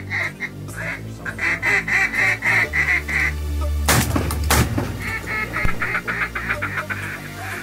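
Mallard quacking in a quick, regular series. About four seconds in, two shotgun shots ring out roughly half a second apart, and then the quacking resumes. A music bed with a steady low beat runs underneath.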